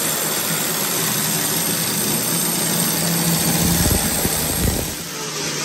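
Handheld grinder running steadily on a steel mesh guard, a held hum under a strong hiss, with a burst of irregular rattling between about three and a half and five seconds in.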